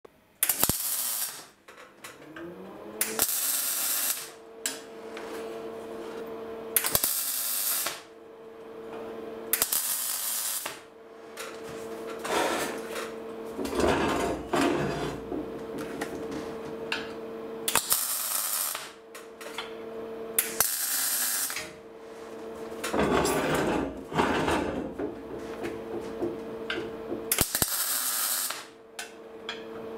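MIG welder tack-welding a steel box: about seven short bursts of arc, each about a second long. Under them runs a steady hum that rises in pitch and settles about two seconds in.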